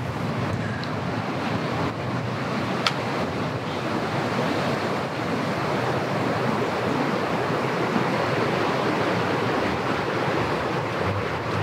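Steady rushing outdoor noise with one sharp click about three seconds in.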